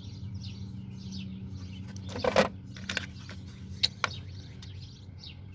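Small birds chirping repeatedly over a steady low hum, with a few sharp clicks and knocks of small metal hand tools being handled, the loudest about two seconds in and two more close together about four seconds in.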